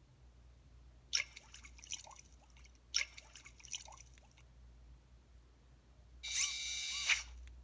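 Built-in sound effect from an EV-W250 'Black Cube' mobile phone: two short runs of quick gliding electronic blips about two seconds apart, then a brighter ringing tone of about a second near the end.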